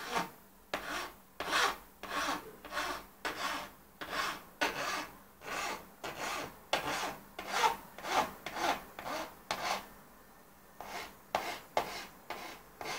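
Hand file rasping along the sharp edge of a 2010 MacBook Pro's aluminium unibody casing in short, even strokes, about two a second, softening the edge. The strokes stop for about a second some ten seconds in, then start again.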